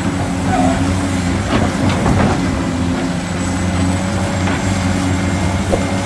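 Caterpillar 365C hydraulic excavator's diesel engine running steadily under load while it digs, with scattered knocks and clatter between about one and a half and two and a half seconds in.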